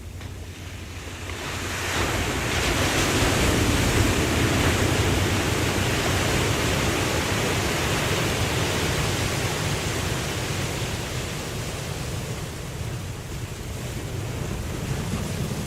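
Ocean surf: a wave breaks about two seconds in, and its rushing noise then fades slowly, with a smaller swell near the end.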